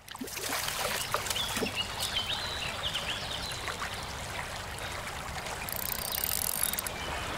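Water trickling and splashing, with scattered short high chirps over it.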